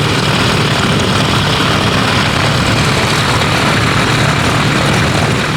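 A vintage biplane's propeller engine running steadily and loud, a continuous drone with no breaks.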